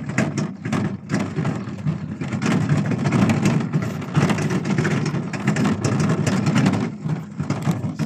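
A wheelbarrow pushed over rough concrete: a steady rumble with a lot of irregular rattling and clatter.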